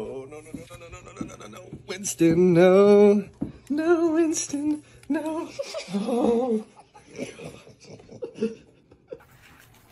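A voice wails in drawn-out, wavering cries several times, loudest about two seconds in, over a steady low hum that stops a little past halfway. The cries die away in the last few seconds.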